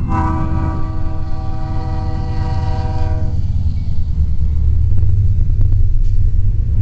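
CN freight locomotive's horn sounding one long blast of several notes at once, lasting about three and a half seconds, over the low rumble of the diesel locomotives and train passing, which carries on after the horn stops.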